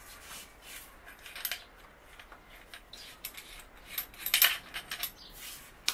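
A short-butt boat fishing rod being handled: scattered light clicks and clinks as its sections and hard fittings knock and rub, with a louder cluster of clicks about four seconds in.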